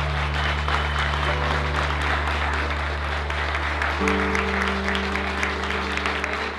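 Guests applauding, many hands clapping together, over music holding a sustained chord that changes about four seconds in.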